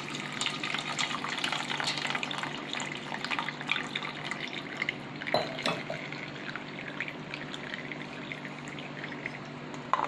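Water pouring over cooked macaroni in a mesh strainer and splashing through into a steel bowl, thinning out to a trickle and dripping as the rinse drains. A few light knocks about halfway and near the end as the strainer is handled.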